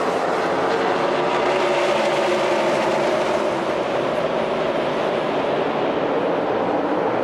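A pack of NASCAR Cup stock cars' V8 engines at full throttle as the field accelerates on a restart, blending into one dense, steady engine sound.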